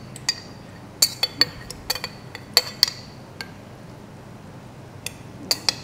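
A metal spoon clinking against a glass jar as makapuno is scooped out: a dozen or so sharp clinks at uneven intervals, each with a short bright ring.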